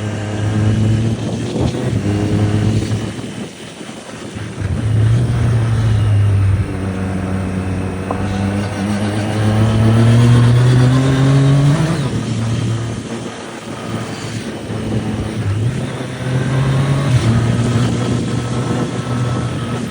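2025 Triumph Street Triple RS's 765 cc inline three-cylinder engine running loud, its note climbing steadily for several seconds to a peak about twelve seconds in, then dropping suddenly, with a few shorter changes in pitch before and after.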